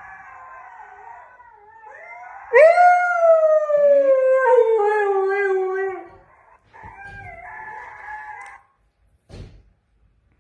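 Wolves howling together in several overlapping voices, answered about two and a half seconds in by a husky's single loud howl that swoops up and then slowly falls for about three seconds. The fainter wolf chorus returns after it, and there is a brief thump near the end.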